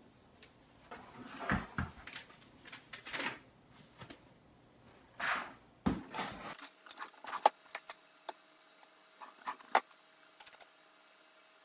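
Rustling and light clattering of items being handled during cleaning, in scattered bursts, followed after about six and a half seconds by a run of sharp clicks and taps.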